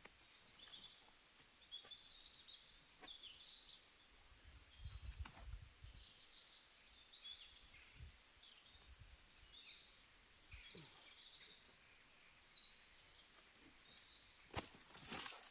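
Faint high bird chirps and twitters repeating throughout, with scattered small clicks and a few sharp knocks near the end.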